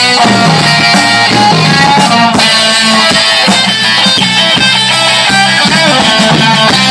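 Live blues band playing loudly through PA speakers, electric guitar to the fore over the drums.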